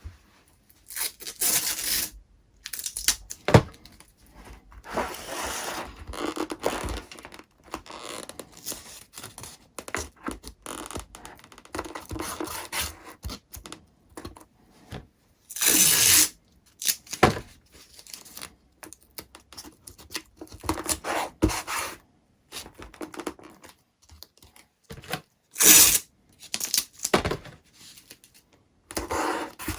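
Masking tape being pulled off the roll and torn, in repeated irregular bursts of ripping, some about a second long, mixed with knocks and handling noise.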